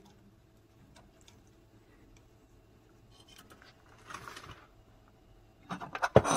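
Hand-handling sounds: faint clicks, a short rustle about four seconds in, then a quick clatter of loud clicks and knocks near the end as tools are handled.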